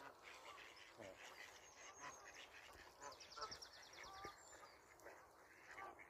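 Faint, scattered calls of waterfowl (Canada geese and ducks), with a rapid high trill about three seconds in.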